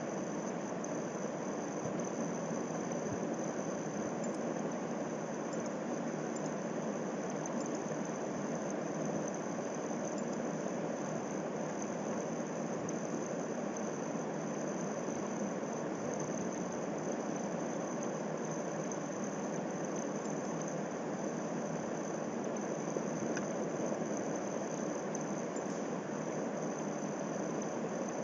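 Steady background noise, an even hiss with a faint high-pitched whine and no clear events.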